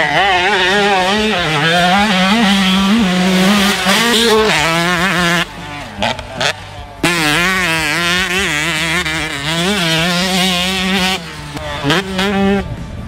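Hopped-up 2020 Yamaha YZ125 two-stroke motocross engine revving hard while ridden, its high, buzzing pitch wavering constantly with the throttle. It drops away twice, about five and a half seconds in and again near eleven seconds, as the throttle is chopped, then comes back on the gas.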